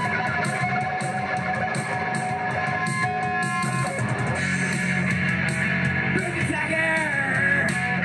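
Live electric guitar music: sustained notes that slide in pitch over a steady low drone, with a regular light ticking on top.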